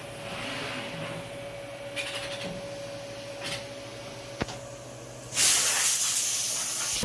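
Morbidelli Universal 3012 TV CNC machining centre hissing with air: a few short hisses and a single click over a faint steady hum, then about five seconds in a sudden loud, steady rush of air.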